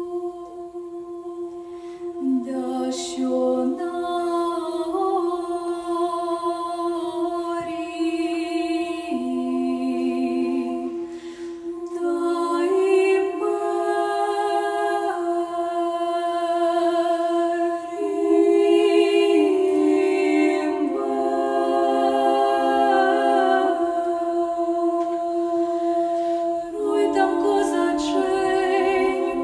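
Choir singing a cappella: a steady held drone note under a slow melody in several voices. The voices enter about two seconds in and swell louder around twelve and eighteen seconds in.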